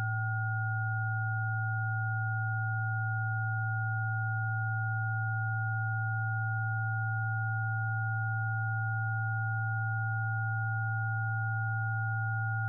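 Oscilloscope music from the Unilateral Phase Detractor, a Raspberry Pi running a Pure Data patch of sine-wave oscillators: a steady drone of pure tones, a strong low hum with two fainter higher tones above it, holding unchanged. It is the same signal that draws a flower-shaped rosette on the oscilloscope.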